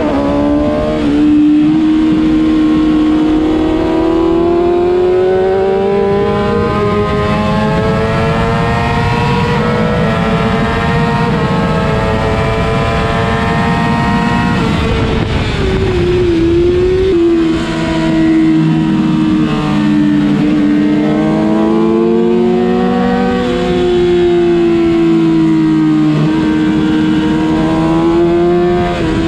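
Kawasaki ZX-6R's inline-four engine running hard at high revs, its pitch climbing steadily for about fifteen seconds, dropping as the bike slows about halfway through, then rising and falling again, over a steady rush of wind.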